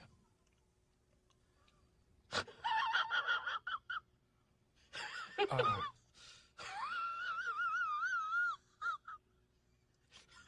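A man's voice making high, wavering non-word vocal sounds in three stretches, the middle one sliding steeply down in pitch, with a faint steady hum underneath.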